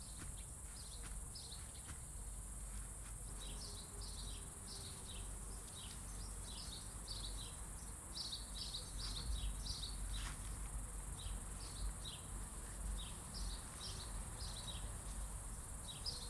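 Outdoor summer ambience: insects trilling steadily at a high pitch, with birds chirping in many short, falling notes throughout.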